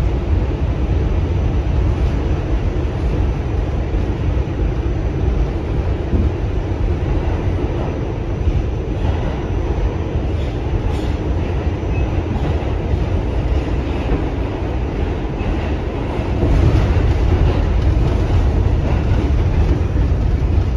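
New York City subway A train running through the tunnel, heard from inside the car: a steady, loud rumble of wheels on rail, growing louder about three-quarters of the way through.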